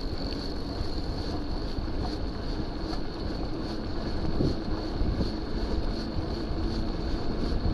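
Wind buffeting the camera microphone over the rumble of mountain bike tyres rolling on tarmac, with a faint steady high whine.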